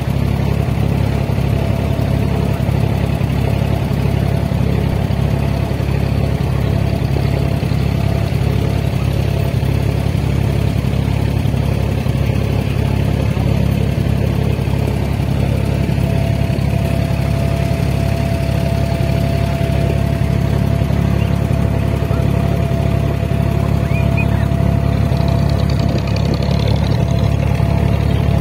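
A boat's engine running steadily under way, a low drone that lasts throughout.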